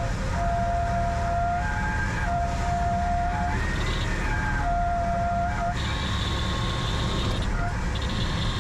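Cessna 182 engine and propeller running steadily at low power, heard inside the cabin, while a stall warning horn sounds in on-off tones of about a second each during the flare and touchdown. A higher steady tone comes in twice in the second half.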